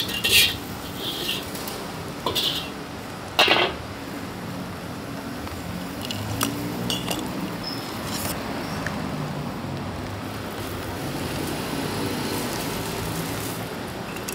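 Metal utensils clanking and clinking against cookware or dishes at a pad thai street stall. There are about five sharp strikes in the first four seconds, the loudest near the fourth second, then a steady low din.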